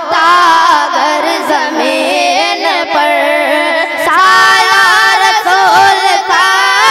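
Boys singing a naat (Urdu devotional song in praise of the Prophet) into microphones: a high, ornamented melody with long held, wavering notes.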